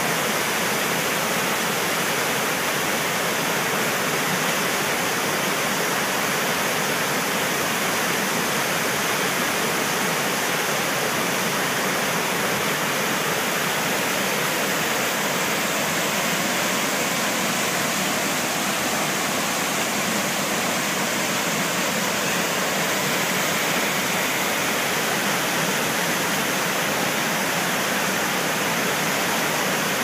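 Waterfall plunging onto rocks into a white-water mountain stream: a steady, unbroken rush of falling and churning water.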